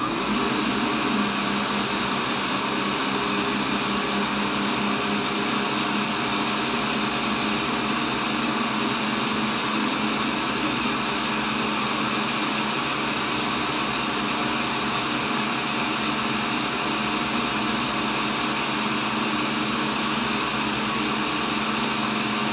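Cincinnati tool and cutter grinder running steadily, its coarse grinding wheel being dressed by hand to restore its cutting surface.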